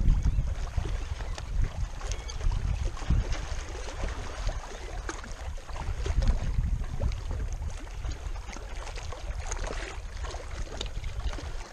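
Gusty wind buffeting the microphone with a low rumble, over choppy lake water lapping and splashing against a rocky shore.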